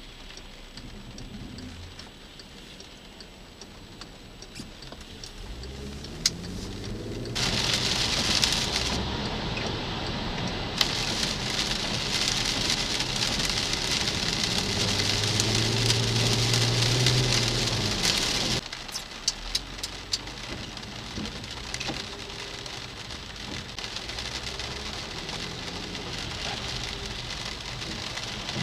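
Rain falling on a car's windshield, heard from inside the cabin, with tyre spray hissing off a wet road and the engine rising in pitch as the car gathers speed. The hiss grows loud about a quarter of the way in and drops off suddenly past the middle, leaving scattered raindrop ticks.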